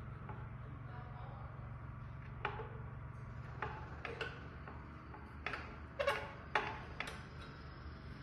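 Light metallic clicks and taps, about eight in a loose irregular series, as a hex key works on a printer's metal mounting bracket. A steady low hum runs underneath.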